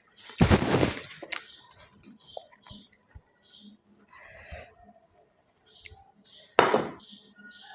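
Close-miked eating: two loud crunches, one about half a second in and one near the end, with soft wet chewing and mouth clicks between them.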